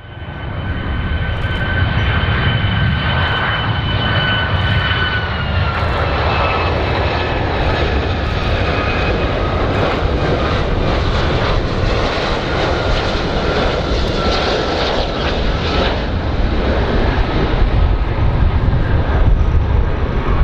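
Boeing 757 jet airliner passing on landing approach: a steady low jet rumble with a high engine whine that drops in pitch about a quarter of the way through and fades later on.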